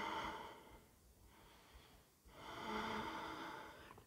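A man breathing audibly through his nose while holding a yoga backbend: two long, hissing breaths, the second starting a little past two seconds in.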